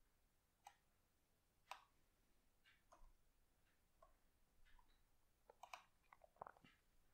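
Near silence with faint, irregular short clicks, about eight of them, bunched most closely near the end.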